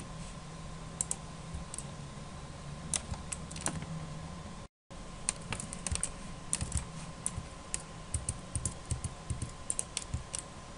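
Irregular clicking of a computer mouse and keyboard, over a faint steady electrical hum with a thin high tone. The sound cuts out completely for a split second about halfway.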